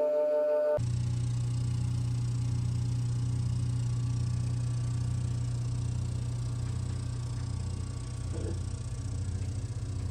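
Vacuum press pump motor running with a steady low hum that starts about a second in, holding a freshly glued veneered faceplate panel under pressure in the press bag.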